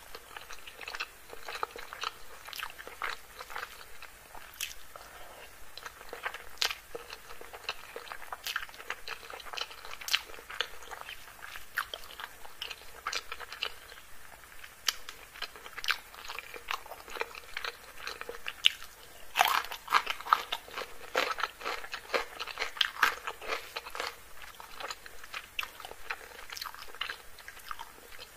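Close-miked chewing and biting of chicken curry and rice eaten by hand: a steady run of sharp, wet mouth clicks and crunches, busiest about two-thirds of the way through.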